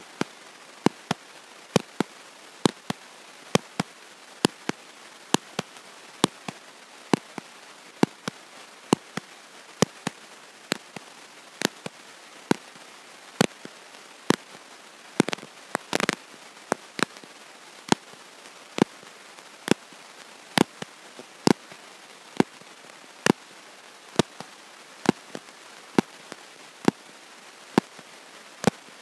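Sharp, irregular clicks and pops, about one to two a second, over a steady hiss, with a short cluster of crackling around the middle and no speech audible: crackle and dropout noise in the recording itself rather than sound from the room.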